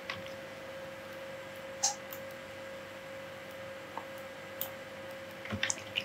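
A few faint clicks of a computer mouse, single ones about two and four seconds in and a quick run of several near the end, over a steady low electrical hum.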